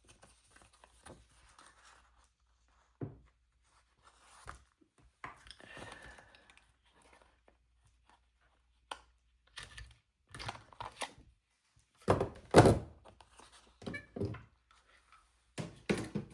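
Quiet rustling and handling of paper, then a run of loud thunks near the end as a paper hole punch is pressed down through a planner page.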